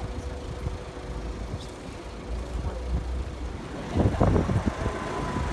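Street traffic rumbling, with wind buffeting the microphone; the buffeting is heaviest about four seconds in.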